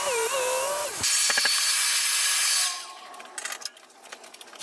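Track saw cutting through a sheet of MDF along its guide rail, the motor's pitch wavering under load. About three seconds in it winds down, followed by a few light knocks.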